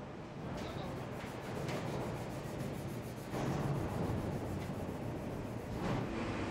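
Car factory press-shop ambience: a steady machinery hum with a few short knocks and clanks, and a faint steady tone coming in near the end.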